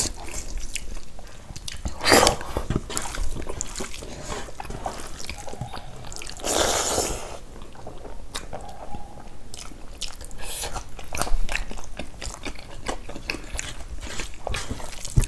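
Close-up mukbang eating sounds: chewing and biting on buffalo-trotter meat and skin, with scattered wet clicks and smacks. There is a sharp click about two seconds in and a longer, louder noisy burst about six and a half seconds in.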